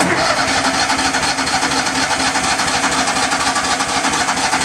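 Electric starter cranking the gasoline engine of a Miller Bobcat 250 welder-generator, a loud, fast, even churning that starts abruptly and stops near the end without the engine catching. The engine will not start after sitting since July, and the owner goes on to add gas.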